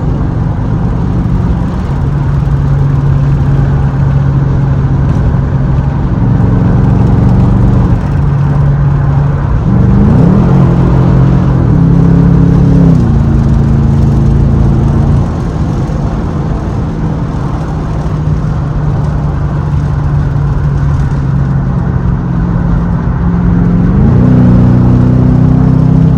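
Tuned Chevrolet Camaro SS's L99 6.2-litre V8 running at a steady cruise with a low exhaust drone. The revs climb about ten seconds in and drop back a few seconds later, then climb again near the end.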